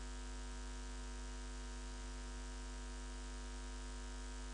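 Steady electrical mains hum with its overtones, over a faint hiss: the background noise of the recording setup, with no other sound.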